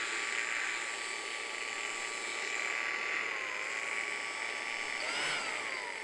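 Small handheld blower running steadily, blowing Japanese honeybees off the duckboard on top of a hive box; its steady air rush carries a thin motor whine that wavers briefly midway.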